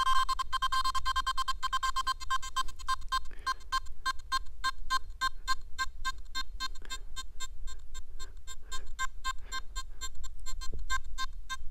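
Nokta Makro Simplex Plus metal detector sounding its target tone for a 1.2-gram 585 gold ring waved over the coil: one held beep for about the first three seconds, then short repeated beeps at the same pitch, about four a second.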